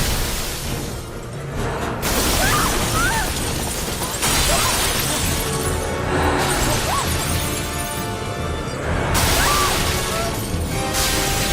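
Film sound design for a witch's spell: loud surges of harsh, shattering noise that cut in suddenly several times, layered over dark film music.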